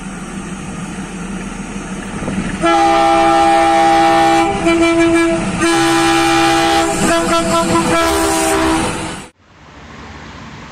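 DI-class diesel locomotive horn sounding in several long blasts over the rumble of the engine as the train approaches, much louder about three seconds in. Near the end the sound cuts off abruptly to quieter background traffic noise.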